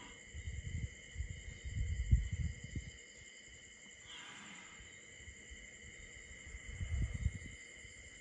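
A sleeping young Asian elephant making low, rough rumbling noises in two bouts: a longer one in the first three seconds and a shorter one about seven seconds in. A steady chorus of night insects buzzes in the background.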